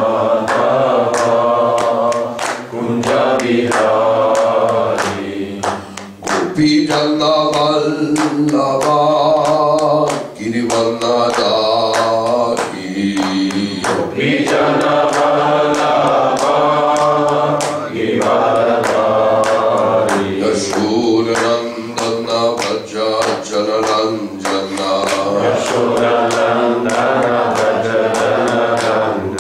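A man sings a devotional Vaishnava chant into a microphone in long, drawn-out notes, with a steady percussive beat of sharp strokes running under the singing.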